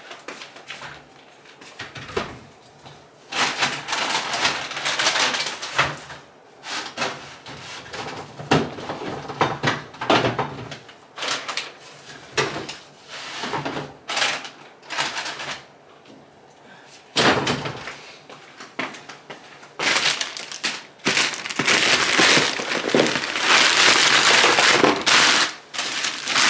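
Plastic grocery bags rustling and crinkling in irregular bursts as groceries are unpacked and handled. The rustling is loudest and nearly continuous in the last few seconds.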